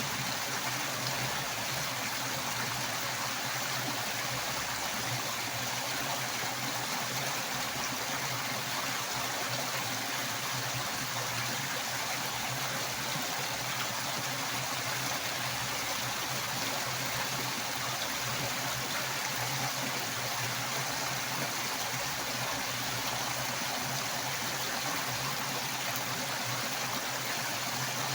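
Strongly rushing water, flowing as a steady, unbroken hiss.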